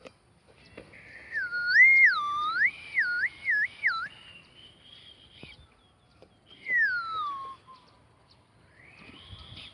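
A person whistling loud, clear notes that swoop up and down several times, then one long falling whistle about seven seconds in: a whistle call to a dog.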